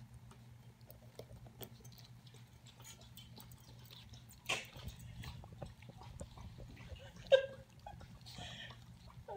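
Puppies lapping milk from a stainless steel bowl: many soft, wet licking clicks. A louder knock comes about halfway, and a sharp knock with a brief ring, the loudest sound, comes a few seconds later.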